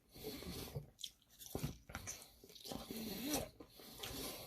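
Close-up eating sounds as chicken wings are bitten and chewed, with irregular wet mouth noises and small clicks.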